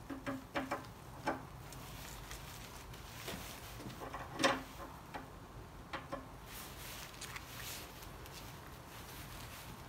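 Stainless steel carriage bolts and washers being fitted by hand into a steel snow plough blade and wear strip: scattered light metallic clicks and clinks, the loudest about four and a half seconds in.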